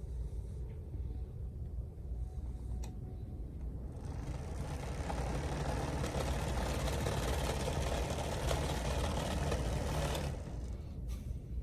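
Fan of a ceramic space heater blowing over a steady low hum. The rush of air comes in about four seconds in and drops away about ten seconds in.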